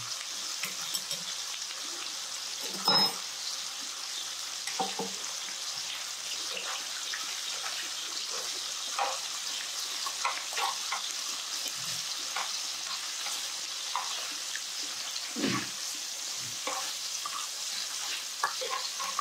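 Sliced duck meat sizzling in a frying pan: a steady high hiss, with scattered soft clicks and short eating sounds over it.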